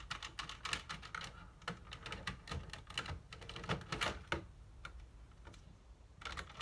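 Quick, irregular plastic clicks and rattles from a Nerf blaster's parts being handled and worked, busiest for the first four seconds or so, quieter for a stretch, then clicking again near the end.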